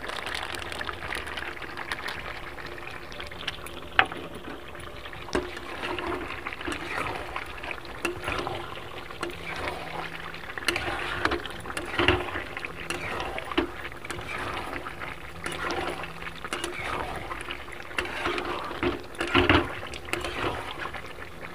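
Thick duck curry bubbling in a metal kadai while a ladle stirs it, scraping through the meat and knocking against the pan over and over, with a sharp clink about four seconds in.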